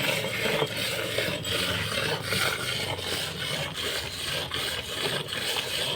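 A Gir cross cow being milked by hand: rhythmic jets of milk squirting into a pail, about two strokes a second, with a rasping sound.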